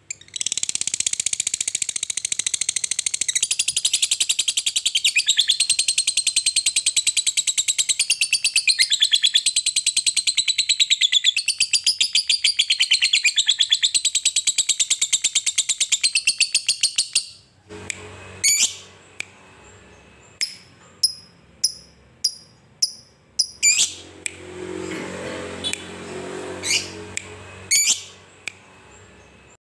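A lovebird singing a long unbroken 'ngekek': a very fast, high, rattling chatter kept up for about seventeen seconds, which stops abruptly and gives way to separate short, sharp chirps. A long ngekek like this is the song Indonesian lovebird keepers prize in their birds.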